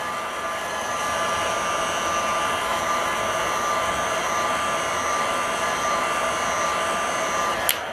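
Electric heat gun blowing steadily, with a faint whine, preheating an SMA connector on a circuit board so the solder will flow despite the heat-sinking ground plane. It stops with a click near the end.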